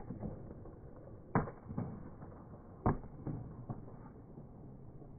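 Wooden breaking boards cracking under martial-arts kicks: two loud sharp cracks about a second and a half apart, each followed by a couple of fainter knocks.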